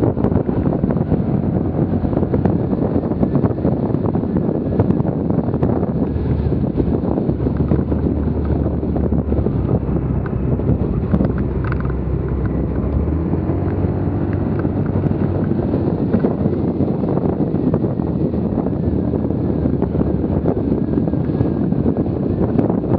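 Wind buffeting the microphone on a moving motorbike, with the bike's engine and road noise running steadily underneath.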